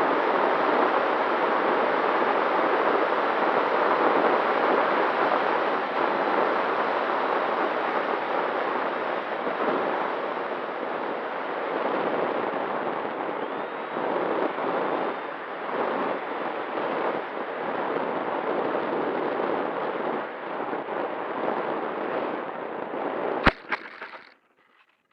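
Steady rushing wind noise on the microphone, easing a little over time, ending with one sharp knock near the end and then cutting off.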